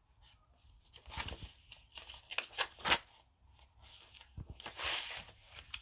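Scattered light clicks and taps of things being handled, the sharpest about three seconds in, then a longer rustle near the end.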